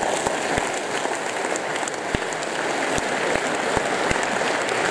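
A large audience of several hundred applauding, dense, steady clapping.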